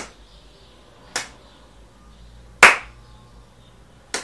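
One person clapping his hands slowly, four single claps spaced roughly a second and a half apart, the third the loudest.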